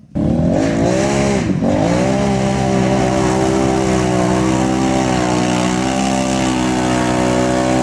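Can-Am Renegade XMR 1000R's V-twin engine running hard at high revs while pushing through deep mud; the revs dip briefly about a second and a half in, then climb back and hold steady.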